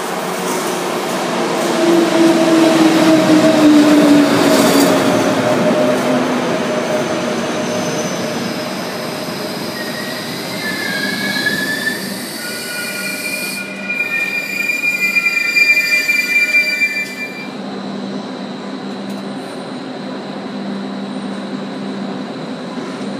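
ÖBB electric locomotive and double-deck coaches pulling into the platform. As the locomotive passes, a loud rush of running gear carries a falling whine. From about ten seconds in, the brakes squeal in several high tones until the train stops a few seconds later, leaving a steady low hum.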